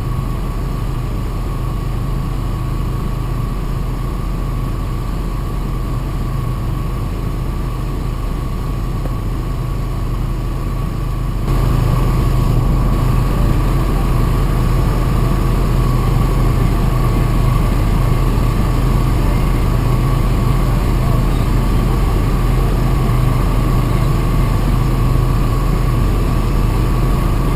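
2002 Jeep Grand Cherokee's 4.7-litre V8 idling steadily, with a steady high whine over the engine hum, while Blue Devil head gasket sealer circulates through an engine suspected of a leaking head gasket. It gets louder a little under halfway through.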